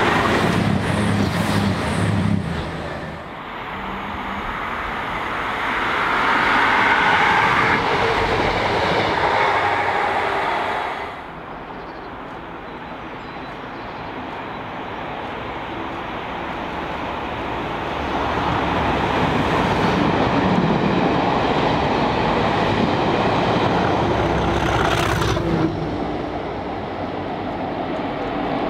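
Diesel trains passing at speed on a main line with rail and wheel noise. First a Class 222 Meridian diesel unit rushes by beneath. Then a Network Rail test train, propelled by a Class 37 diesel locomotive, approaches and passes, growing louder as it nears.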